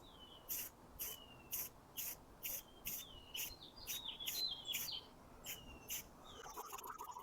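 A small songbird singing: a steady run of short, sharp high notes about two a second, with falling whistled slurs between them.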